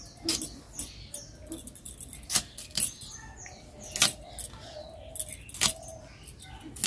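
Taro (kochu) being cut with a blade: about eight sharp cutting strokes at uneven intervals.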